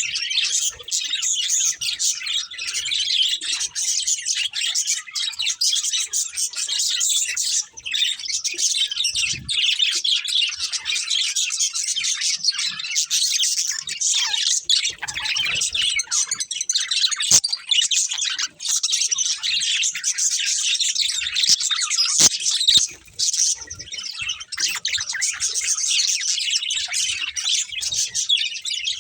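A pair of budgerigars chirping and warbling almost without a break, in quick high-pitched notes, with only a few brief pauses.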